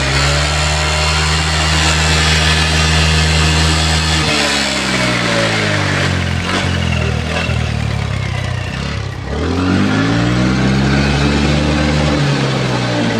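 TVS Ntorq 125 scooter's single-cylinder engine revved hard: held high for about four seconds, falling back toward idle, then rising again and held high before dropping near the end.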